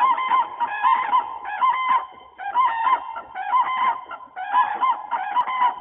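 Common crane trumpeting: a loud run of bugling calls in three bouts, with short breaks about two and four and a half seconds in.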